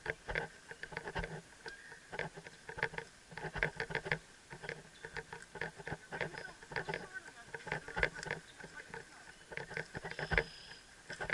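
Helmet-mounted camera rattling and clicking against the rider's riding helmet, irregular sharp ticks several times a second, jostled by the horse's walking strides.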